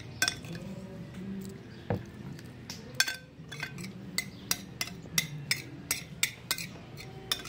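Metal spoon clinking and scraping against a glass bowl while eating, a string of irregular sharp clinks.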